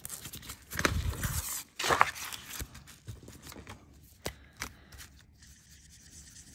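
Rustling and scraping as craft materials are handled and laid down on a cutting mat, loudest in the first two seconds. Two sharp clicks follow about four seconds in, then a faint scratchy rubbing as a Sharpie permanent marker starts colouring the embossed aluminium tape tag.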